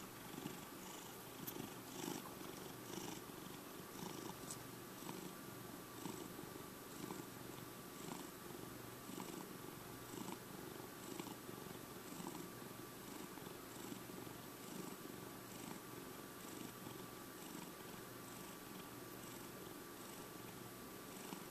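Domestic cat purring close up, a steady purr that swells and eases with each breath, about once a second.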